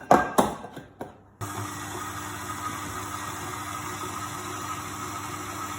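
A few knocks, then an electric mixer switched on about a second and a half in, running steadily as it mixes cookie dough.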